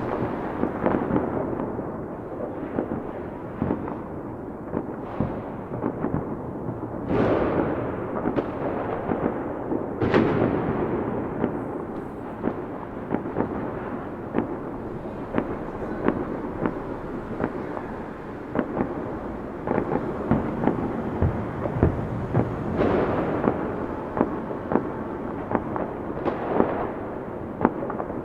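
Fireworks going off without a break: a dense run of sharp bangs and crackles, with four louder booms, about 7, 10, 23 and 26 seconds in, each dying away over a second or two.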